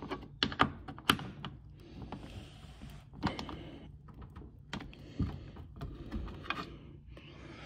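Light clicks and knocks of tools and parts being handled, about a dozen at irregular spacing, over a faint low rumble.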